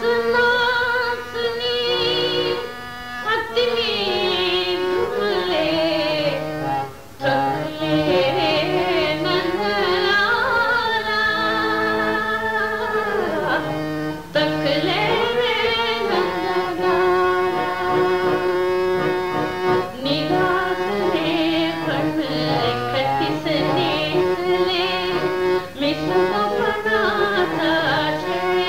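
Carnatic classical music: a melodic line with gliding, ornamented notes over sustained lower tones.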